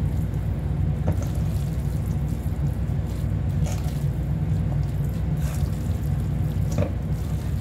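Metal tongs tossing sauce-coated soba noodles in a stainless steel bowl: wet squishing with a few light clicks of the tongs against the bowl, over a steady low hum.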